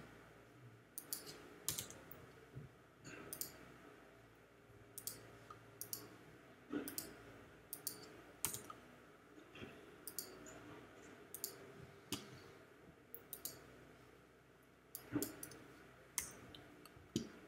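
Faint, irregular clicks of a computer mouse and keyboard, roughly one or two a second, some in quick pairs.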